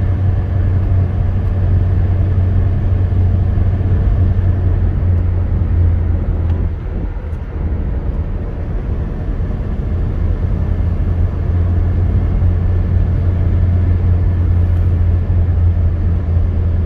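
Steady low rumble of road and engine noise inside a moving car's cabin at highway speed, easing slightly for a moment about seven seconds in.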